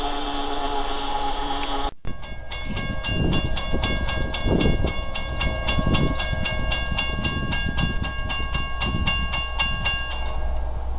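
A train horn sounding for about two seconds. Then the grade-crossing bell rings in rapid, even strokes while the gates lower for an approaching train, and it stops near the end once the gate arm is down.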